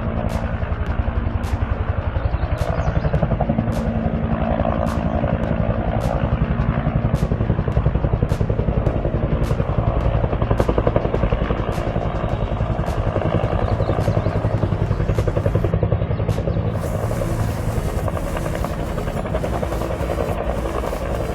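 A motor running steadily with a low drone, with faint regular clicks about twice a second for most of it.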